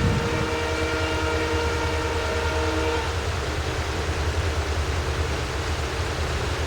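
WDG4 diesel locomotives, with their EMD 16-cylinder two-stroke engines, running with a heavy, pulsing low rumble while hauling a tanker train. The locomotive horn sounds a held multi-note blast that cuts off about three seconds in.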